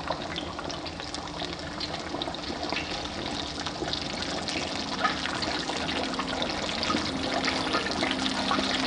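Hot oil sizzling and crackling steadily, a dense hiss of fine pops as food fries.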